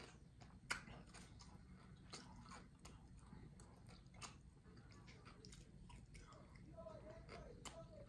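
Faint close-up chewing of barbecue meat: irregular wet mouth clicks and smacks.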